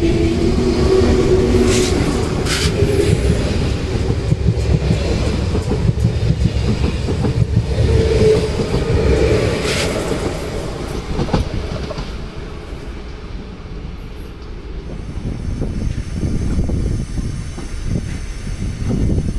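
A train running past close by: a steady low rumble of wheels on the rails, with a few sharp clanks and short squealing tones in the first half. The rumble dies down about two-thirds of the way through, then builds again near the end.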